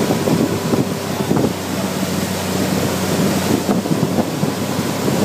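Outboard motor running steadily at towing speed, with a steady low drone, over wind buffeting the microphone and the boat's wake rushing.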